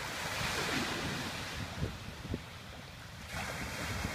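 Sea waves washing onto a beach, with wind buffeting the microphone in short low thumps.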